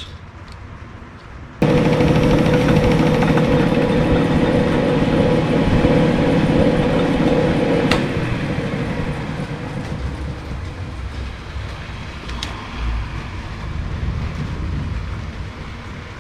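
Small metal lathe switched on about two seconds in and running with a steady hum while turning a 43 mm fork bushing down to width. A sharp click comes about halfway through, and after it the lathe runs on somewhat quieter.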